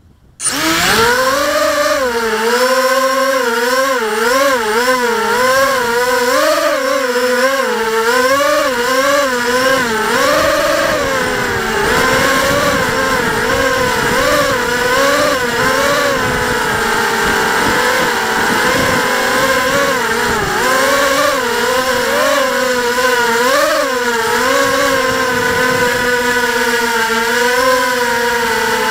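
Electric motors and propellers of an FPV quadcopter spinning up suddenly at takeoff, then a continuous whine whose pitch rises and falls constantly as the throttle changes in flight, heard from the drone's onboard camera.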